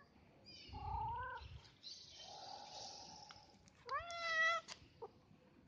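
Calico cat meowing twice: a short wavering meow about a second in, then a louder, longer meow that rises in pitch and holds, about four seconds in.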